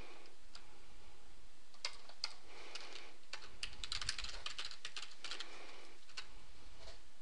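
Typing on a computer keyboard: short, irregular runs of keystroke clicks over a faint steady background hiss.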